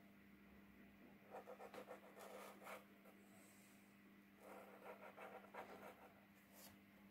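Faint scratching of a paint marker's nib rubbing back and forth on paper while colouring in, in two stretches of quick strokes, over a low steady hum.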